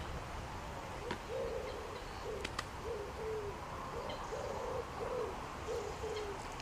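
A pigeon cooing: a run of soft, low hooting notes in short phrases, starting about a second in and repeating throughout, with a few faint clicks of handling in between.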